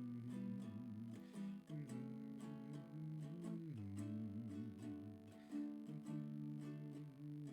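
Ukulele strummed in a steady rhythm, playing the song's chords in an instrumental break between verses.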